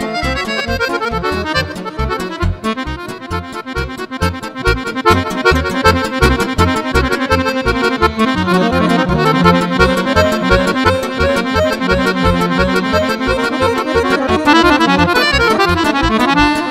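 Button accordion playing fast lăutărească runs of notes over a steady pulsing bass beat.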